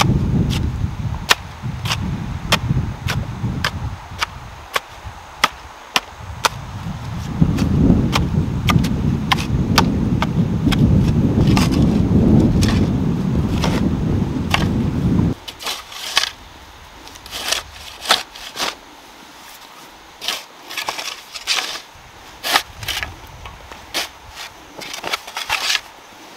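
Garden hoes chopping into dry, clumpy soil in a steady rhythm of strikes, about two a second, over a low rumble that cuts off suddenly about halfway through. After that come scattered scrapes and knocks of a shovel cutting and lifting soil in a trench.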